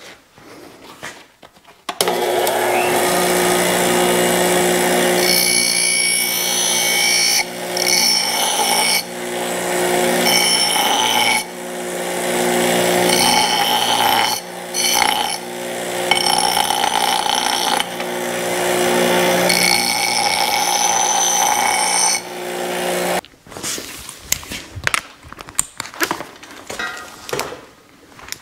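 A 1978 Duracraft half-horsepower bench grinder runs with a steady motor hum while metal is ground against its wheel, giving a harsh high grinding noise in several passes with short breaks. It starts about two seconds in and cuts off abruptly near the end, leaving a few scattered clicks and knocks.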